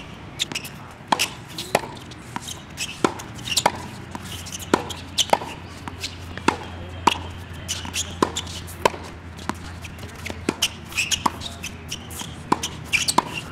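Tennis rally on a hard court: a series of sharp pops from rackets striking the ball and the ball bouncing, about one every half second to a second.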